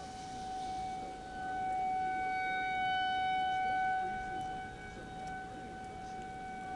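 Federal Signal 2001-130 rotating outdoor warning siren sounding a steady single tone as an alert for a severe thunderstorm warning. It swells louder about a second in and fades again after a few seconds as the rotating horn sweeps past.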